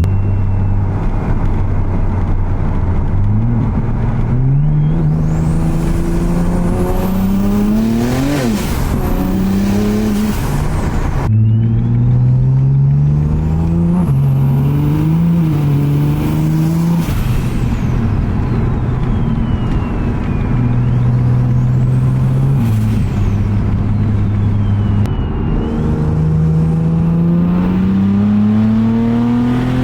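BMW 335i's tuned twin-turbo N54 inline-six accelerating hard through the gears, its pitch climbing on each pull and dropping at each upshift, several times over. A high whine sweeps up and down above the engine as it pulls.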